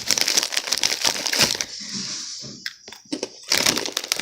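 Chip bag crinkling and crackling as it is handled, a dense run of crackle for the first second and a half, then short bursts about three seconds in and again near the end.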